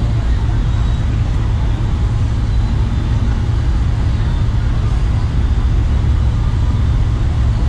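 Loud, steady low rumble of outdoor background noise.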